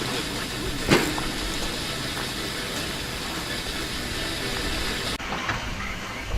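Steady road and engine noise inside a moving car, with one sharp click about a second in.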